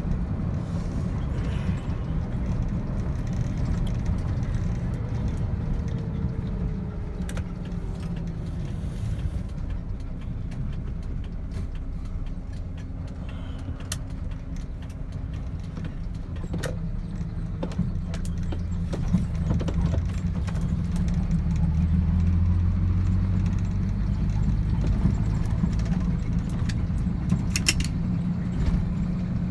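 Vehicle engine running steadily while driving on a rough road, heard from inside the cab, with occasional short rattles and knocks.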